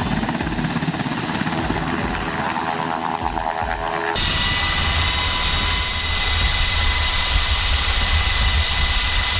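Black Hawk helicopter running, its rotor beating in a low pulse. About four seconds in, the sound cuts abruptly to a steady, high turbine whine over a deep, constant drone.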